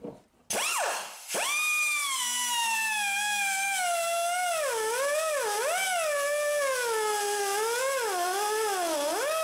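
Pneumatic cut-off tool whining as its wheel cuts into metal on a car's front strut assembly. It starts about half a second in, falters briefly, then runs on with its pitch sagging and recovering as the wheel is pressed into the cut.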